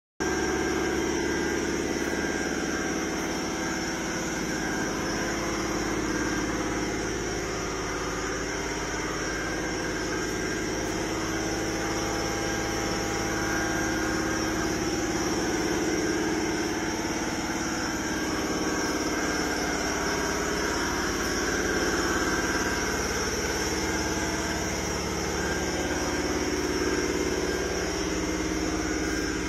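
An engine idling steadily, swelling a little now and then without revving.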